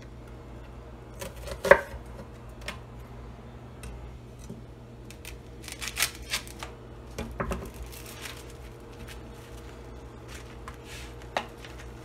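Chef's knife knocking on a wooden cutting board while slicing a red onion, a few irregular strokes with the loudest about two seconds in. It is followed by scattered softer knocks and clatter as the knife cuts into ground beef in a foam tray, and one more sharp knock near the end, over a faint steady hum.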